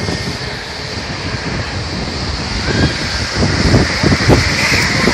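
Jet airliner engines spooling up, a rising whine over heavy rushing noise that grows louder toward the end, with jet blast buffeting the microphone.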